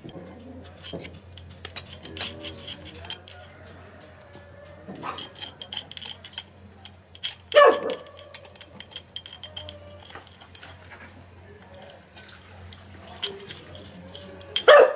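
Small metal clinks and clicks of a motorcycle cam chain being handled and threaded up through the cylinder over the studs, with a metal hook tool tapping against it. Two louder, short cries stand out, about seven and a half seconds in and near the end.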